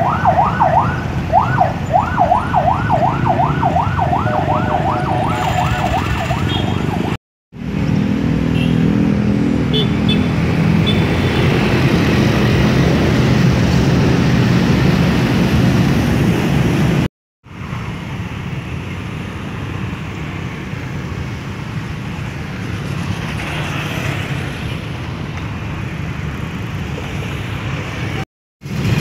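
Indonesian railway level-crossing alarm sounding through its loudspeaker: a fast repeating rising whoop, about three a second, over road traffic. It fades after about six seconds. After a cut, steady rumble of road traffic and engines runs on to the end.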